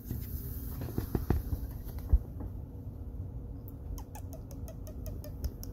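Virginia opossum moving about right against the phone on a lap: low rustling and bumps, the loudest about two seconds in, then a run of quick sharp clicks, about six a second, over the last two seconds.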